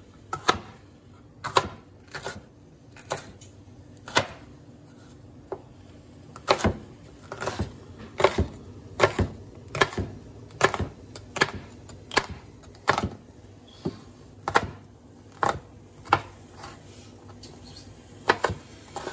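Chef's knife chopping a green bell pepper on a cutting board: sharp single knocks of the blade on the board, sparse at first, then a steady chop about once a second.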